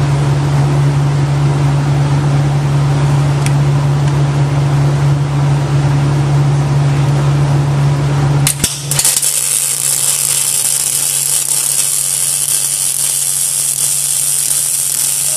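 A steady low hum from the welding equipment, then a sharp click about eight and a half seconds in as the weld is started. The MIG arc of a Bug-O CW5 circle-welding carriage then strikes on the steel plate and runs with a steady crackling hiss as it lays a circle weld.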